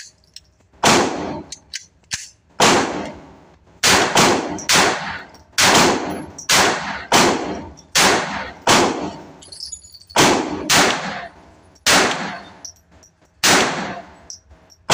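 Mauser M20 .22 LR semi-automatic pistol fired shot after shot, about fifteen sharp cracks at an irregular pace of roughly one every half second to a second, each ringing out in the echo of an indoor range.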